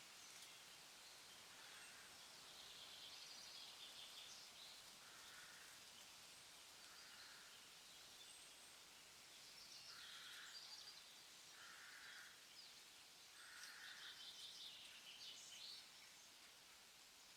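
Faint outdoor nature ambience: birds chirping, with short, hoarse calls repeating every second or two.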